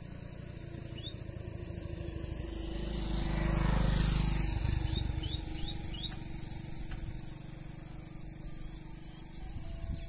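Rural outdoor ambience. A low rumble swells and fades about four seconds in, over a steady high-pitched drone, with a few short rising bird chirps, one about a second in and several from five to six seconds. The peacock does not call.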